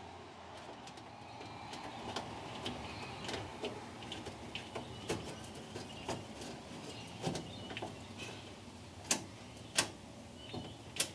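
Scattered small clicks and taps from hands fitting a knob onto a dash switch, with three sharper clicks near the end. Faint bird chirps in the background.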